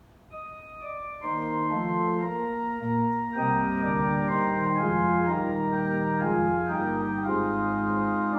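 Organ playing: a single held note enters just after the start, more notes join about a second in, and from about three and a half seconds it fills out into full sustained chords.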